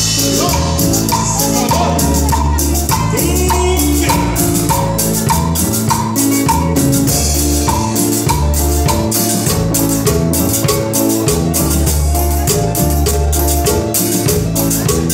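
Live Latin dance-band music: keyboard melody over repeating bass notes, with hand percussion keeping a steady quick beat.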